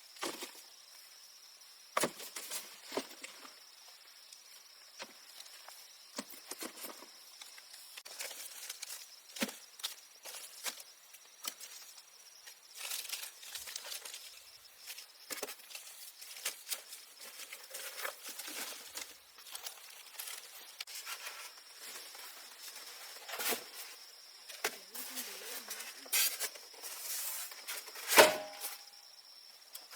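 Scattered rustles, taps and knocks of someone working by hand, with the loudest knock near the end, over a faint steady high-pitched hum.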